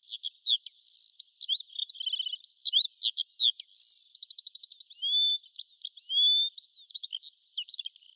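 Songbird singing: a quick string of chirps and twittering notes, twice breaking into a short rapid trill and twice into a clear upward-sliding whistle, with brief pauses between phrases.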